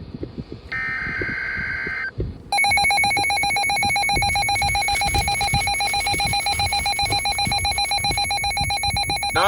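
Emergency Alert System alert tones. A short screeching burst of the digital data header ends about two seconds in. After a brief gap comes the harsh two-tone EAS attention signal, a steady buzzing tone held for about seven seconds, with a low rumble underneath.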